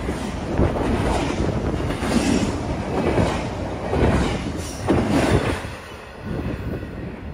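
A BNSF double-stack intermodal freight train's well cars rolling past close by at speed, the steel wheels clattering in repeated beats over the rail. The sound falls away near the end as the last car goes by.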